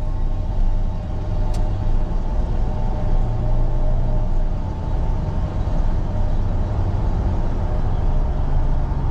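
Steady engine and road noise inside the cab of a 1999–2006 Chevy 1500 pickup driving at speed, mostly a low rumble with a faint engine hum.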